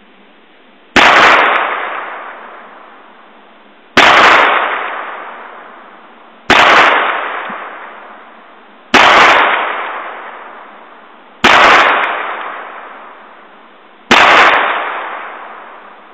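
Six shots from a Ruger Single Six revolver firing .22 Magnum rimfire rounds, one about every two and a half seconds, each report dying away over a couple of seconds.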